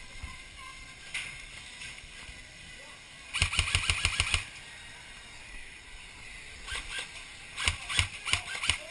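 Airsoft gun firing a full-auto burst of about a second, roughly ten shots a second, about a third of the way in. Near the end come several more short strings and single shots.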